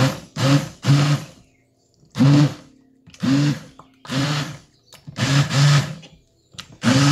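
Immersion blender pulsed in about nine short bursts, its motor whirring up and falling back each time as the blade purees chunky squash soup in a plastic container.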